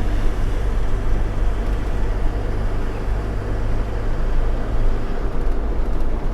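Truck's diesel engine running steadily with a low hum; its note shifts about five seconds in.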